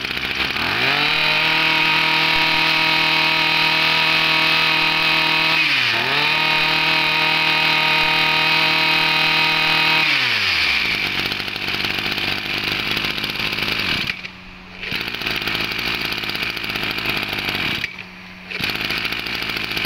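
Zenoah BCZ27 brush cutter's 27cc two-stroke engine revving up quickly and held at a steady high whine for about ten seconds, with one brief dip in speed midway. It then slows to a rough, uneven idle that twice drops away for a moment.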